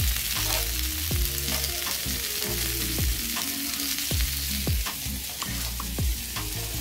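Pork belly slices sizzling on a parchment-lined tabletop griddle, a steady frying hiss, while metal tongs turn the meat. Underneath runs background music with a deep bass line and regular falling thumps about once a second.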